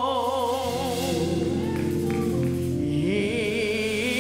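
A woman singing a gospel solo into a microphone: she holds a long note with vibrato, then rises into a new phrase about three seconds in, over held chords from an accompanying instrument.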